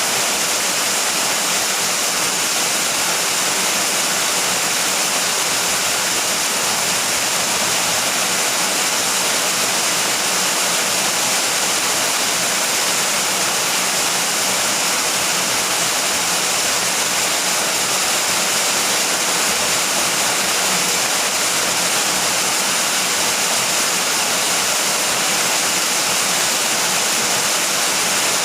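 Steady rain falling, an even unbroken hiss with no thunder and no single drops or knocks standing out.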